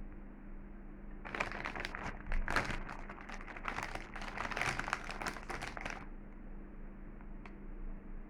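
Pehuamar potato chip bag crinkling as it is handled: a dense run of crackly rustling starting about a second in and stopping abruptly about six seconds in, over a faint steady hum.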